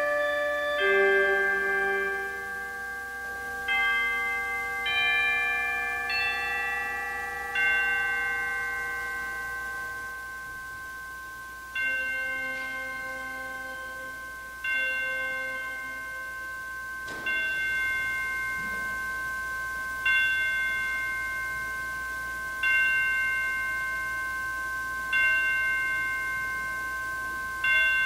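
Bell chimes ringing a slow melody of struck notes that ring on and overlap. From a little past halfway they settle into single strikes about every two and a half seconds, each ringing long.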